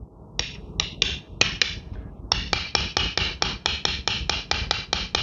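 A small steel tool tapped over and over against the magnetic tip of an inductive speed sensor, giving sharp metallic clicks. First a few irregular taps, then from about two seconds in a quick, even run of about five a second. Each tap is meant to make the sensor put out a pulse of AC voltage.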